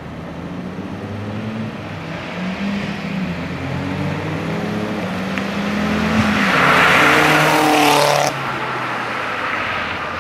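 Audi A4 1.8T's turbocharged four-cylinder, running headers, gutted catalytic converters and a Magnaflow straight-pipe exhaust, accelerating toward and past: the engine note climbs in pitch and grows louder over several seconds, is loudest about six to eight seconds in, then drops off abruptly.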